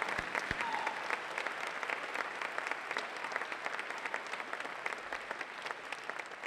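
Audience applauding, many hands clapping together, the applause gradually dying down.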